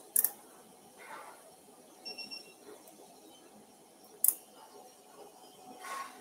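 Steel surgical instruments clicking sharply twice, about four seconds apart, as a needle holder and forceps work a skin suture, with soft rustling between. A short, faint beep about two seconds in.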